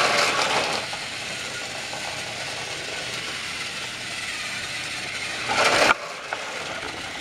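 Motorized Trackmaster toy train engines running on plastic track: a steady, rattling gearbox whirr. It is louder at the start and again just before six seconds in, then drops off suddenly.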